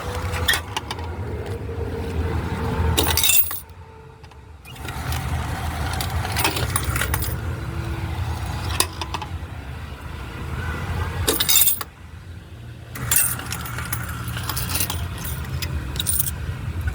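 Low rumble of a car, with keys jangling and clicks and rattles from handling. The sound drops away abruptly twice for about a second.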